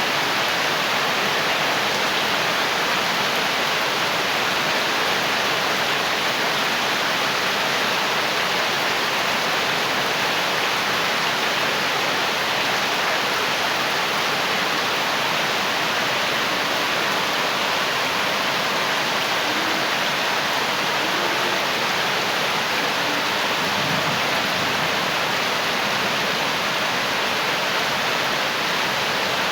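Rain falling steadily, a dense even hiss that does not let up.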